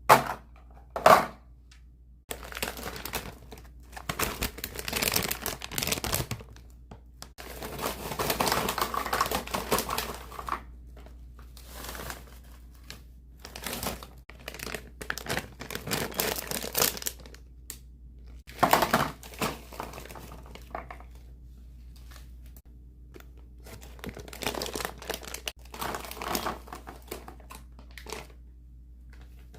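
Snack packaging crinkling and rustling in irregular bursts as snacks are handled and packed, with a few short sharp knocks.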